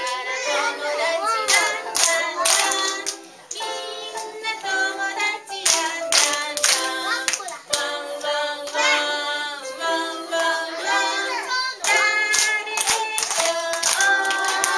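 A woman sings a children's action song with music behind her, clapping her hands at many points along with it.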